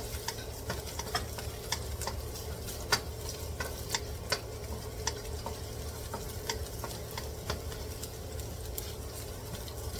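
Chopped garlic sautéing in oil in a pan, with a steady sizzle, while a utensil stirs it and clicks against the pan every so often.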